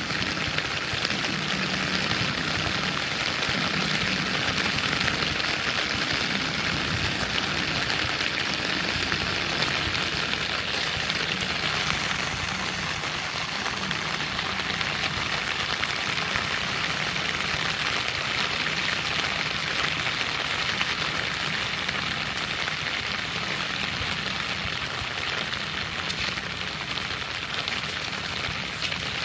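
Heavy rain falling steadily, a dense even hiss of drops pattering on surfaces.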